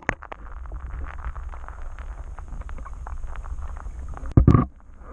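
Creek water heard through an underwater camera: a steady low muffled rumble with many small clicks and ticks of gravel and stones, and a brief louder burst of sound a little over four seconds in.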